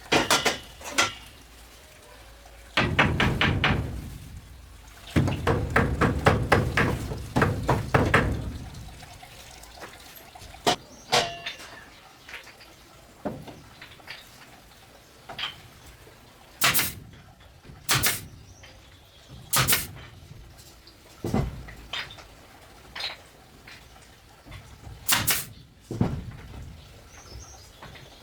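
Repeated sharp knocks: quick runs of strikes with rustling in between early on, then single knocks every second or two.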